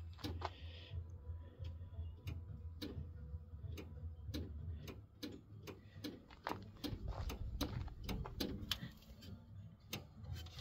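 Irregular clicking, about two clicks a second, over a low steady hum from a 1967 Dodge Charger. It sounds like a solenoid or relay clicking, which the owners take to be the one that runs the lights, though they are not sure what it is.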